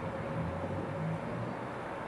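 Class 390 Pendolino electric train approaching slowly, giving a low steady running rumble. A faint steady hum fades out about halfway through.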